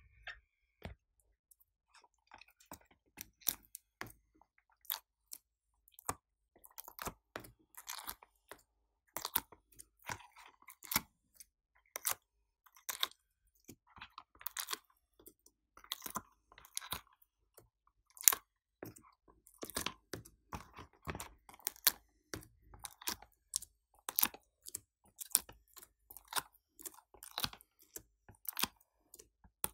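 Slime and soft clay being pressed and handled by hand: an irregular run of sticky clicks and crackles, several a second.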